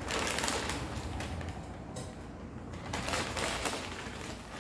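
Plastic bag rustling and crinkling in irregular handfuls as gloved hands dig in it for potting material.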